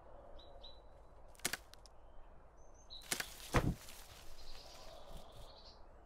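Cartoon sound effects over a faint outdoor ambience with a few short bird chirps. A sharp crack comes about a second and a half in. About three seconds in comes the loudest sound, a swish falling in pitch into a low thump: a pillow dropping from a tree and landing on the ground.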